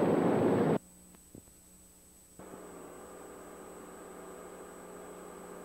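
A pack of racing stock cars' engines running hard, cut off abruptly under a second in by the end of the recording. After a click and a short near-silent gap, there is the faint steady hiss and hum of blank videotape.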